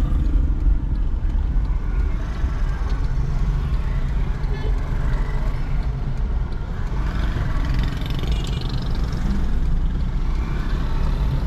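Car driving through city traffic: a steady low rumble of engine and road noise with the hiss of surrounding traffic, swelling for a couple of seconds about seven seconds in as other vehicles go by.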